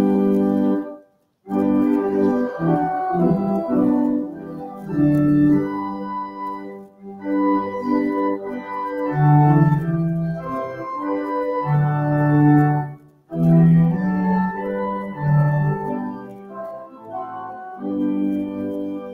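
Organ playing slow, sustained hymn chords, broken by two brief silences, near the start and about two-thirds of the way through.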